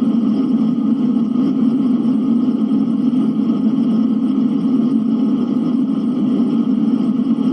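Blizzard wind blowing as a steady, even low rush with no gusts or breaks.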